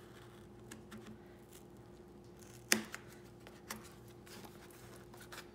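Scissors working along a cardboard mailer box, faint scraping and small clicks of blade on cardboard, with one sharper snip or tap about two and a half seconds in. A faint steady hum lies underneath.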